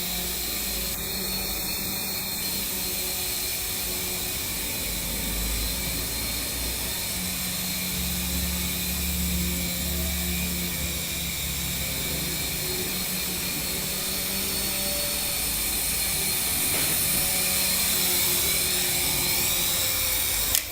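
Small electric R/C helicopter's motor and rotor blades whining steadily and high-pitched in flight, with a slight rise in level near the end.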